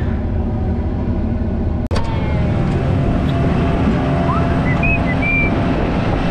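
Combine harvester's engine running steadily, with a sharp click and a momentary dropout about two seconds in; after that the engine is heard from outside the cab, from the ladder platform.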